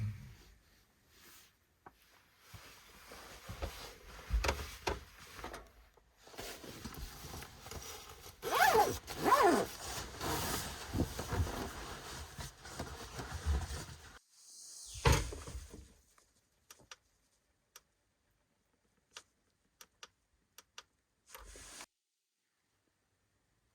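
Close handling noises: rustling, with rasping zipper-like pulls about 8 to 10 seconds in and a heavier knock near 15 seconds. These give way to a scattered run of sharp single clicks that stop near the end.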